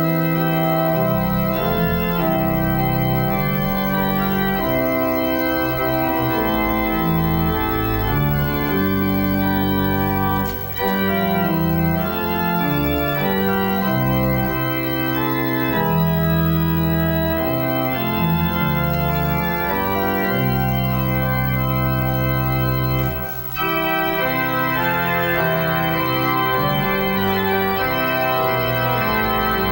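Church pipe organ, in place since the church was built in 1923, playing sustained chords over deep bass notes. The music breaks off briefly twice, about ten seconds in and again around twenty-three seconds.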